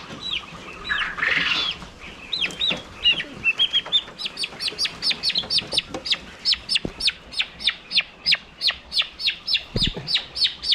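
Young turkey poult peeping insistently: a fast, even run of high, falling peeps, about four to five a second, that settles in a few seconds in. Before the run there are a couple of short, harsh, noisy bursts.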